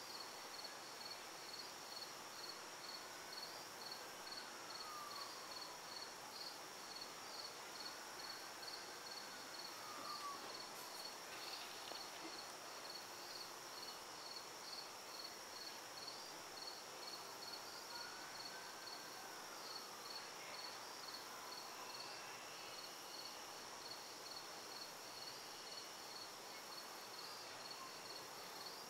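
Evening insect chorus: an evenly pulsed high chirping over a steady high buzz. A few faint tones rise and fall in the background, each over about two seconds.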